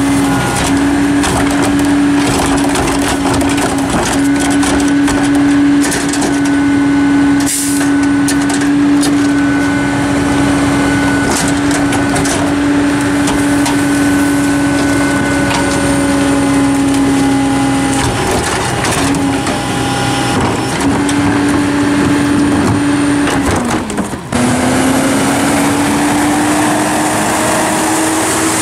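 Hino/New Way mini rear-load garbage truck working its hydraulics: a steady high drone from the engine and packer pump while a cart is tipped into the hopper and the load is compacted, with much crackling and crunching of trash being crushed. About 24 seconds in the drone drops off, then rises steadily as the truck pulls away.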